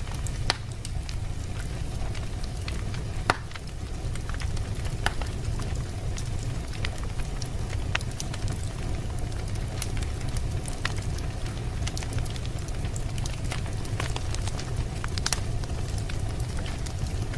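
Wood fire burning in a fireplace: a steady low rumble with irregular crackles and pops, a few sharper pops standing out.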